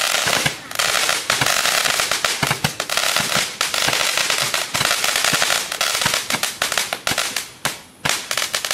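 Sunwing Disco Stick firework going off: a sustained crackling hiss packed with rapid sharp cracks and pops. It dips briefly under a second in, then thins out near the end.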